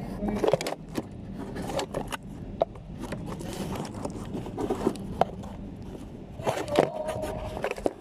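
Handling noise from a hand gripping and shifting a phone over its microphone: irregular clicks, knocks and rubbing scrapes. Faint music and voice sit underneath.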